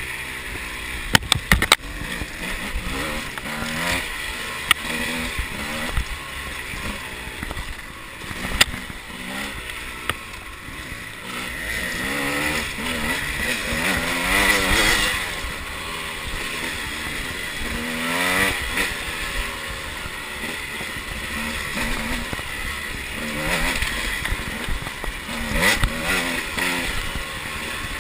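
Two-stroke enduro motorcycle engine under riding load, its pitch rising and falling again and again with throttle and gear changes. A few sharp knocks come about a second in.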